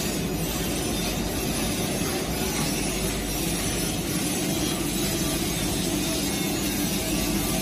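Industrial pass-through bakeware washer-dryer running with pans on its conveyor: a steady, even rushing noise over a low hum.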